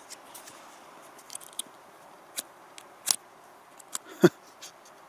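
Scattered sharp clicks and light knocks from small camping gear being handled at a spirit stove, over a faint steady wind hiss; the loudest knock comes about four seconds in.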